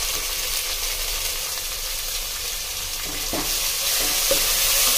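Sliced onions, green chillies and fresh tomato pieces sizzling in hot oil in a pan. About three seconds in a spatula starts stirring them, with a couple of light knocks, and the sizzle grows louder.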